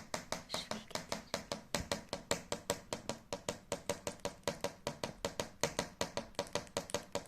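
Lovebird tapping its beak in a fast, steady rhythm of sharp clicks, about six or seven a second.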